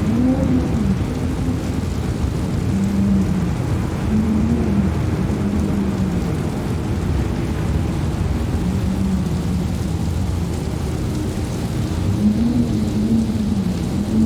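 Strong wind buffeting the microphone, making a loud continuous low rumble. Over it a moaning tone comes and goes, wavering up and down in pitch, strongest at the start and again near the end.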